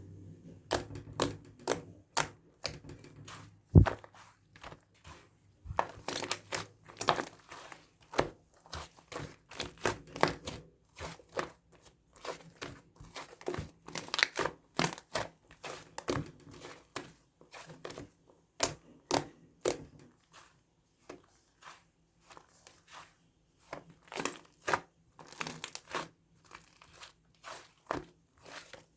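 Irregular crinkling and crackling, with many short sharp snaps and a louder knock about four seconds in.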